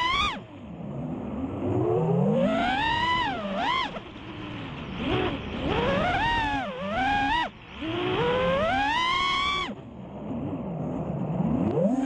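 A five-inch FPV quadcopter's four Emax Eco 2207 1700kv brushless motors driving Gemfan Hurricane 5146 props on 6S, heard from the camera on the quad. The whine climbs and drops in pitch over and over as the throttle is punched and eased, with a rush of air underneath.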